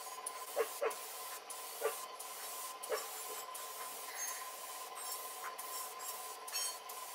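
Rubbing and wiping over a freshly painted Homelite chainsaw housing part, a steady scuffing noise, with four light knocks of the part being handled in the first three seconds.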